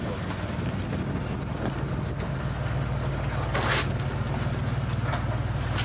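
Small ferry boat's engine running steadily with a low, even drone, alongside the quay. A brief rush of noise cuts across it about three and a half seconds in.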